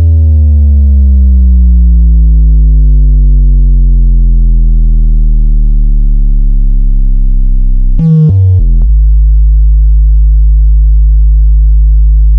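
Loud synthesized bass test tone: a deep bass drone whose upper overtones slide slowly downward for about eight seconds. Near the eight-second mark it jumps through a few short stepped tones, then settles into a steady deep bass hum with a buzzy edge.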